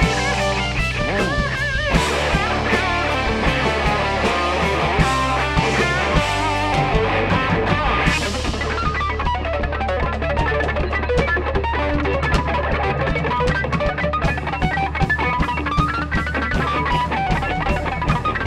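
Live rock band in an instrumental break with no singing: an electric lead guitar plays melodic lines over drums, bass guitar and a second guitar, with bent, wavering notes about a second in.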